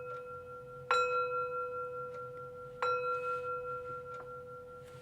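A meditation chime struck twice, about a second in and again near three seconds, with the ringing of an earlier strike still sounding at the start. Each strike rings on with the same few clear tones and slowly fades.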